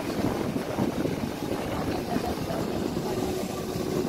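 Steady wind buffeting the microphone over the low rumble of breaking ocean surf.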